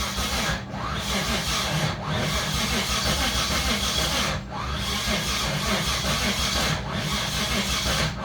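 Starter cranking the Mitsubishi 6G72 3.0 V6 of a 1989 Dodge Raider, which turns over without catching, with short dips in level every couple of seconds. The owner thinks it sounds like it is trying to go backward, as if the timing were 180° out, though he has found the timing correct. The uploader wonders whether new lifters, soaked in oil but not bled of air, are the cause.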